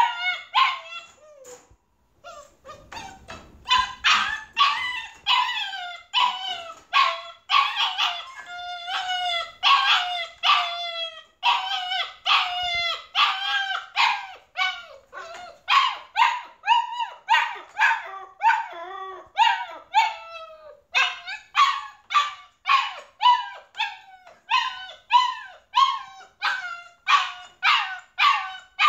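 Puppy barking and yapping over and over, more than one high call a second with each dropping in pitch, barely pausing: a puppy crying out at being left alone in its crate.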